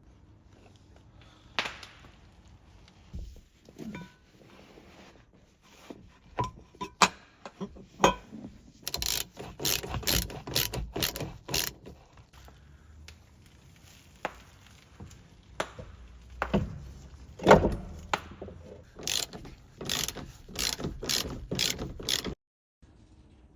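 Ratchet wrench being worked in runs of quick clicking strokes, with occasional knocks of metal on metal; the clicking stops abruptly near the end.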